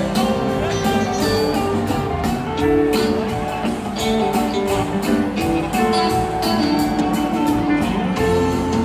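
Live rock band playing a jam, led by electric guitar over bass and drums, recorded from within the concert crowd.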